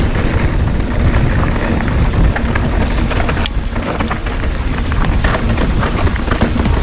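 Wind buffeting the microphone in a dense low rumble while a mountain bike rattles over a rough dirt trail, with many quick clicks and ticks from the tyres, chain and frame hitting roots and rocks.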